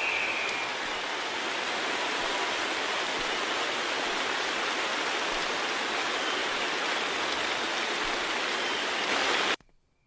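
Steady rushing noise from a television, cut off suddenly near the end when the set is switched off.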